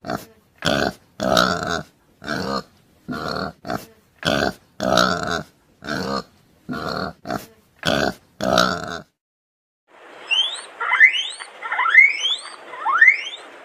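Wild boar grunting, about a dozen short separate grunts. After a short pause, guinea pigs give several quick rising squeaks over a faint hiss.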